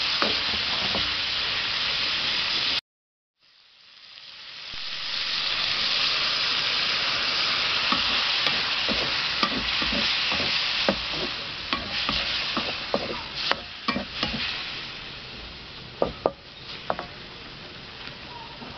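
Chicken and vegetables sizzling in a hot wok while a spatula stirs them, with short clicks and scrapes of the spatula on the pan. The sound cuts out suddenly about three seconds in and fades back up; near the end the sizzle is lower, with a few sharp knocks.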